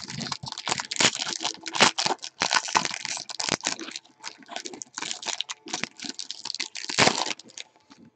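Foil trading-card pack wrapper being torn open and crinkled by hand: a dense run of sharp crackling rustles, with a loud crinkle about seven seconds in before it thins out.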